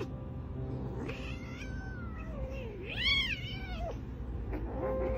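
Small kitten mewing during rough play-fighting: a few high, sliding mews, the loudest a rising-and-falling call about three seconds in.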